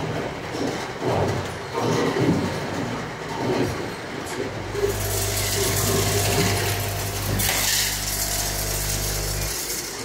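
Air bottle washing machine running on a conveyor line. Plastic bottles clatter along the conveyor, then about five seconds in a steady motor hum and a loud hiss of blowing air start together. Both cut off abruptly just before the end.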